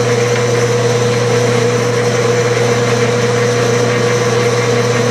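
Clausing gear-head metal lathe running under power during a thread-cutting pass on the second start of a double thread: a steady, loud mechanical hum with a low drone and a higher steady tone.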